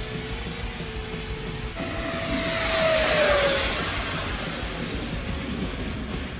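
E-flite 70mm F-16 RC jet's electric ducted fan making a close pass: a high whine comes in about two seconds in, grows louder and drops in pitch as the jet goes by, then settles to a steadier, fainter whine.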